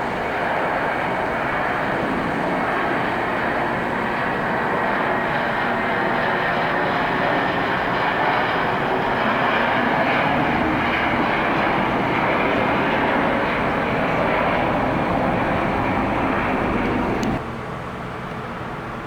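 Jet airliner engines running in a steady, loud rush as the plane passes on landing or takeoff; the sound cuts off suddenly near the end, dropping to a quieter background.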